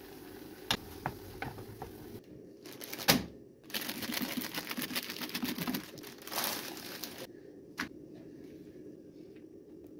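A few light clicks, then a sharp click about three seconds in. Scissors then cut through a plastic bread bag, making a rapid run of snipping clicks and plastic crinkling for about three seconds.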